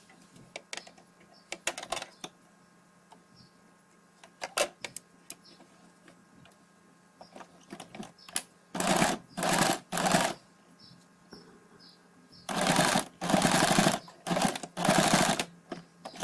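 Domestic electric sewing machine stitching through a denim jeans waistband in short runs, five in all of under a second each, in the second half. Scattered clicks of handling come before them.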